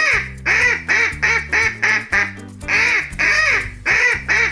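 Duck quacking repeatedly in quick runs of short quacks, over background music.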